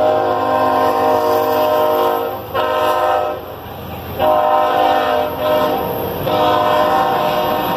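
CSX diesel locomotive's air horn sounding several blasts, each a chord of steady tones. A long blast is followed by a short one, there is a brief break about three to four seconds in, then further blasts resume.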